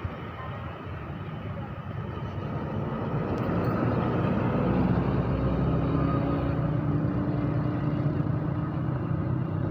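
Large road vehicle's engine and tyre rumble, growing louder over the first few seconds as it comes close, then staying loud with a faint steady engine tone underneath.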